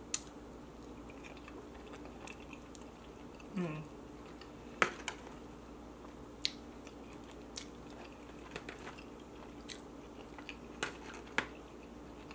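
Close-miked chewing of a mouthful of chicken wet burrito with sour cream: soft, wet mouth clicks and smacks scattered throughout, with one short falling hum about three and a half seconds in.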